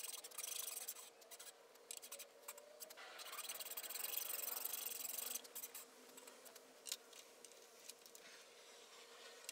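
Fine-toothed dozuki (Japanese pull saw) cutting dovetail kerfs in a board, a soft high rasp of sawing strokes with the blade held on a magnetic dovetail jig. The sawing eases off after about five seconds, with a light knock near the end.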